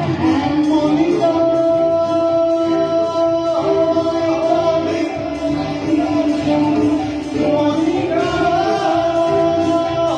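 A song sung with instrumental accompaniment, the melody held on long notes.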